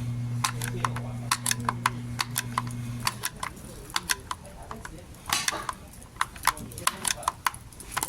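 Irregular sharp metallic clicks and clinks of hand tools working on a car's parking brake. A steady low hum underneath stops about three seconds in.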